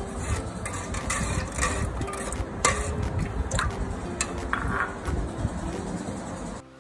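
Steel ladle stirring juice in a steel pot, clinking and scraping against the metal several times.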